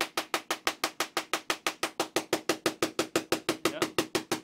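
Small solid-state Tesla coil firing short sparks from its top load at a low pulse rate: an even train of sharp cracks, about eight a second.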